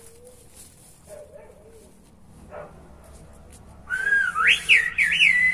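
Silbo Gomero, the whistled language of La Gomera, whistled by a man. A loud whistle starts about four seconds in, swoops up and down in quick glides, then holds a steady high note.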